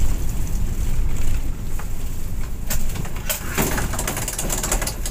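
Low rumble of a vehicle heard from inside it, easing about one and a half seconds in as it slows. Then comes a scatter of sharp clicks and high-pitched sounds in the second half.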